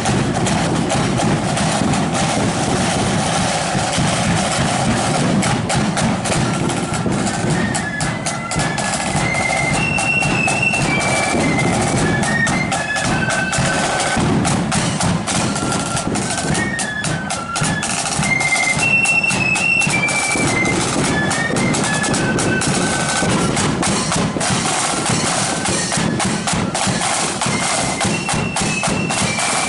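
Loyalist marching flute band playing: rapid snare drum rolls and beats throughout, with the flutes joining in on a high, stepping tune about seven seconds in.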